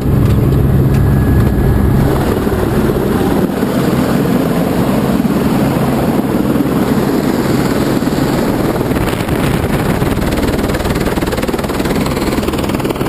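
Helicopter running on the ground with its main rotor turning: a loud, steady rush of engine and rotor. A low hum heard inside the cabin fades about two seconds in, leaving a broader rushing from outside the machine.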